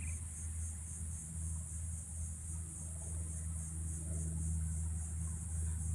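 Insects shrilling with a steady high buzz that pulses evenly a few times a second, over a steady low hum.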